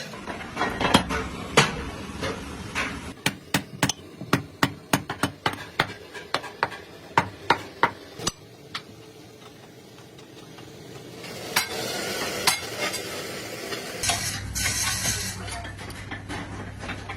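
Hand-tool work on metal: a long run of sharp metal taps and clinks, several a second, that stop about eight seconds in. Near the end a steady low hum with hiss comes in.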